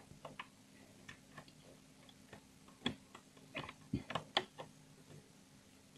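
Light, irregular clicks and taps of a metal hook against the plastic pegs of a rubber-band bracelet loom as the bands are pushed down the pegs, with a few louder clicks around three to four seconds in.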